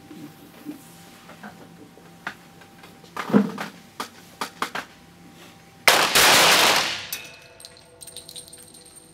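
Centerfire pistols fired almost together by several shooters on neighbouring lanes: a dense cluster of shots about six seconds in, lasting about a second and dying away in the range's reverberation. A single loud knock and a few smaller clicks come a few seconds before it.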